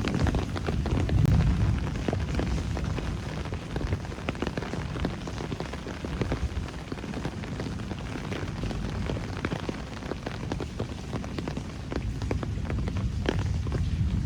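Steady rain falling on city streets and surfaces, with many separate close drop hits over a low rumble. It is a little louder about a second in.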